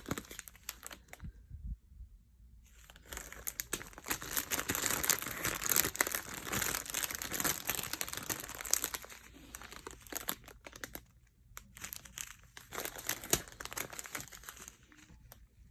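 Small plastic bags of diamond-painting drills crinkling as they are handled, with the drills rattling inside, busiest from about three to nine seconds in.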